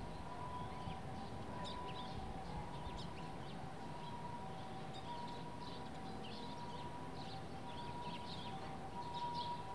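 Eurasian tree sparrows chirping: many short, high calls scattered throughout. Behind them, a faint steady tone alternates between a higher and a lower pitch.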